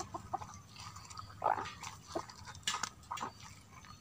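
A hand squeezing and kneading pounded andrographis leaves in water in a clay mortar, making irregular wet squelches and small splashes as the green juice is wrung out.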